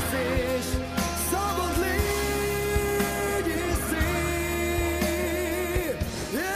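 Slow ballad music with long held, slightly wavering notes over a steady low bass.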